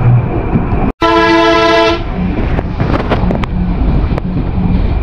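Vehicle horn sounding once for about a second, over the rumbling engine of a minibus on a rough dirt road, with scattered knocks and rattles. The sound cuts out for an instant just before the horn.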